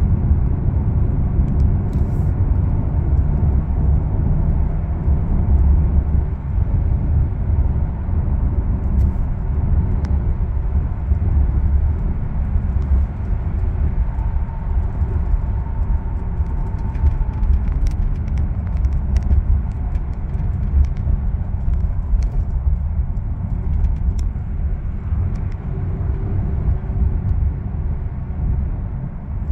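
Car driving at freeway speed, heard from inside the cabin: a steady low rumble of road noise.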